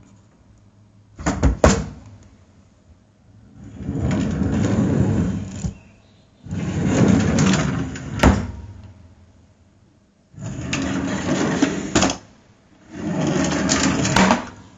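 A drawer sliding open and shut again and again: two sharp knocks about a second and a half in, then four sliding runs of one to two seconds each, three of them ending in a sharp knock as the drawer hits its stop.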